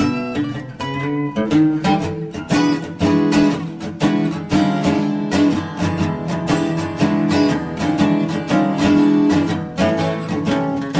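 Background music: a strummed and picked acoustic guitar playing a lively rhythmic tune.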